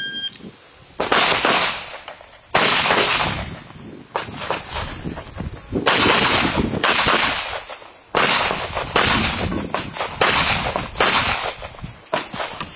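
Electronic shot timer beeps once at the start, and about a second later the handgun opens fire: a long string of shots, many of them in quick pairs, each echoing on the range.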